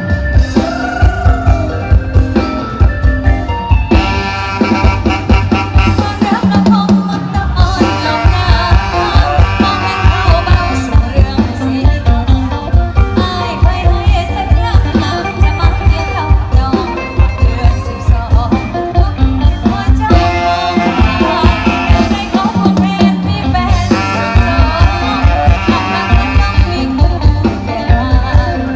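Live Thai song played loud through a concert PA: a woman singing over a band of electric guitars, keyboard and a drum kit keeping a steady beat.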